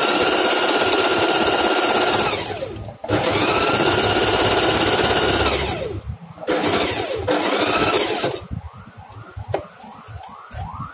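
Singer 4432 sewing machine stitching free-motion embroidery with a darning foot. It runs at full speed in three bursts, each winding down to a stop. Near the end it runs slower and quieter, with a repeating rising whine about two or three times a second.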